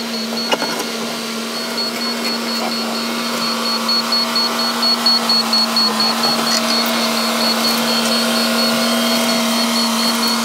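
Doosan wheeled excavator's diesel engine running at a steady pitch as the machine shoves mud with its front dozer blade, with a few light clicks and knocks over it.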